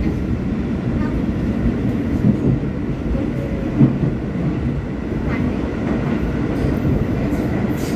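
Subway train running along the tracks, heard from inside the car: a steady low rumble, with a couple of brief sharp knocks from the wheels and rails near the middle.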